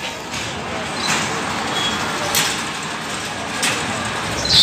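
Fairground ride running: a steady rattling rush of machinery noise with a clank about every second, and a high metallic squeal starting near the end.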